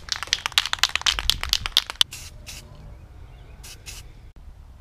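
Aerosol spray paint can rattling quickly for about two seconds as it is shaken, then a few short hisses of spray paint going onto a metal wheel spacer.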